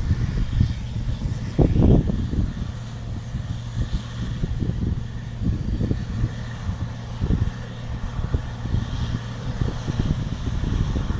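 Combine harvester running steadily: a constant low engine hum under uneven rumbling, with a brief louder rumble about two seconds in.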